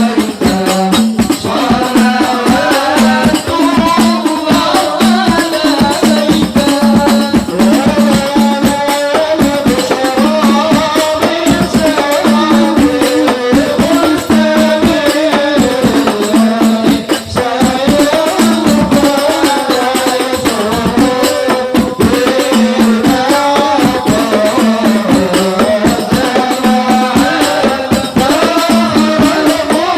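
Music: a sung melody over hand percussion, with a jingling rattle and a regular drum beat.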